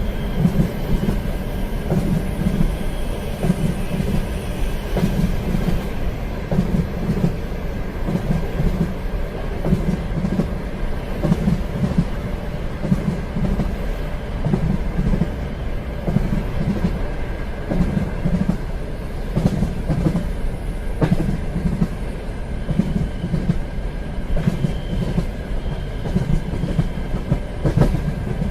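Train running along the track: a steady low rumble with a regular clickety-clack of the wheels passing over rail joints, a couple of clacks a second, over a faint steady whine.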